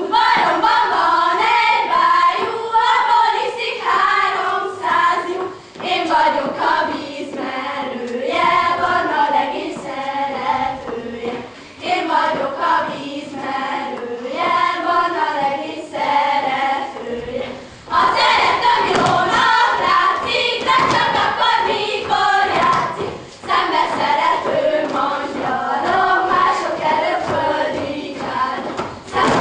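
A group of girls singing a Hungarian folk song together for a karikázó circle dance, phrase after phrase with a short break about every six seconds. Their feet step and stamp on the wooden stage under the song.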